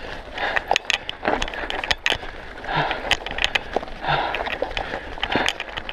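Mountain bike clattering downhill over a loose gravel and stone trail: the frame and components rattle with many irregular sharp knocks, over a steady crunch of tyres on stones.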